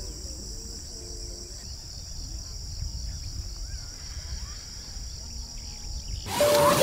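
Steady high-pitched chorus of insects, with a low rumble under it and a few faint whistled calls. About six seconds in, a loud rustling noise cuts in.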